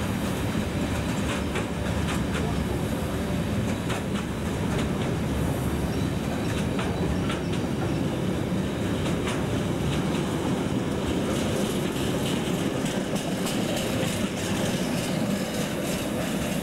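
Container freight train's wagons rolling past close by: a steady rumble of wheels on rail with quick clicks as the wheels cross rail joints.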